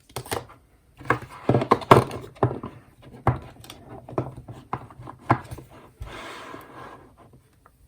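Hands handling Kihno album packaging and photocards: a run of taps, knocks and clicks, then a short rustle near the end.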